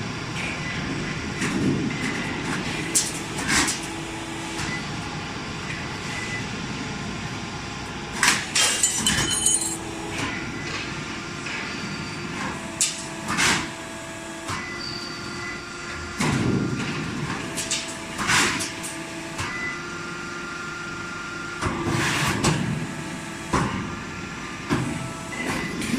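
HVAC auto duct line running on test: steady machine noise with tones that start and stop as stations cycle, broken by irregular sharp metal clanks and bangs from the sheet-metal forming and cutting.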